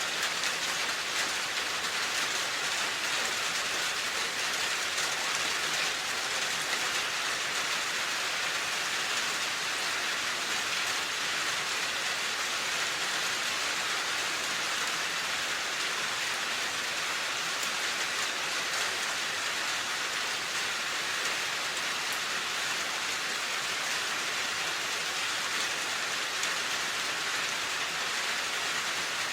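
Steady, even rain falling on a surface, a dense hiss of drops without distinct individual impacts.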